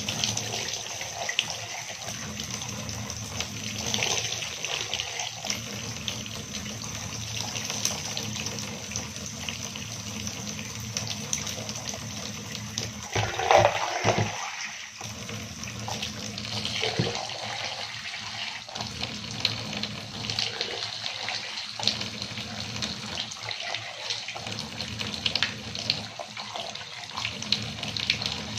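Tap running into a bathtub while water is scooped with a plastic dipper and poured over hair to rinse it, splashing into the tub again and again. The loudest splash comes a little before halfway.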